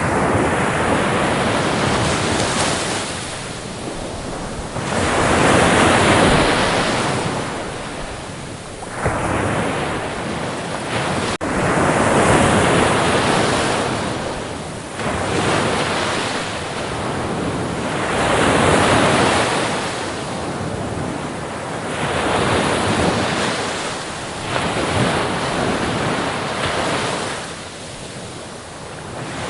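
Sea waves breaking against the shore: a rushing wash of surf that swells and falls away about every three to four seconds.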